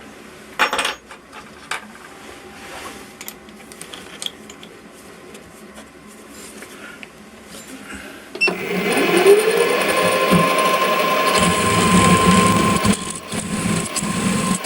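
Small bench milling machine's spindle motor switched on about 8.5 seconds in, its whine rising as it spins up and then running steadily while the drill bit cuts a 5 mm hole in the steel bar. Before that, only a few light clicks of handling.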